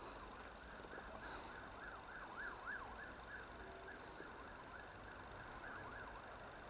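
Faint, distant emergency-vehicle siren in yelp mode: quick up-and-down pitch sweeps, several a second, fading in and out.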